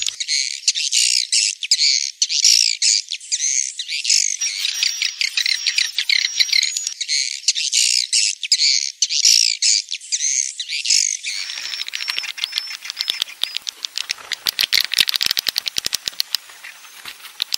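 Swiftlet lure call: a dense mass of swiftlet chirps and twitters, mixed from roost recordings, of the kind played to draw swiftlets into a nesting house. From about two-thirds of the way in, a rapid fluttering clicking joins the calls, the wing-flapping sound of the mix.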